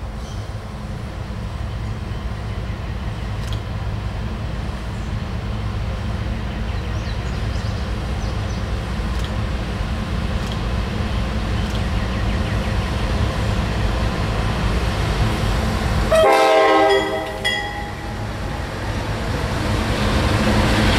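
CSX freight train's diesel locomotives approaching, their low rumble growing steadily louder. About three-quarters of the way in the lead locomotive sounds one short horn blast of a little over a second. Near the end the locomotives run past close by.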